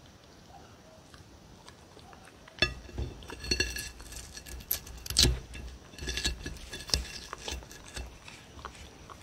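A ceramic plate clinking and scraping on a table as a hand handles food on it: a string of sharp knocks, each with a short ring, starting about two and a half seconds in and dying away near the end.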